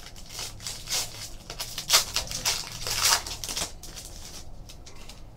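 Foil wrapper of a Panini Titanium hockey card pack being torn open and crinkled by hand: a run of crackling rustles for about four seconds, then quieter.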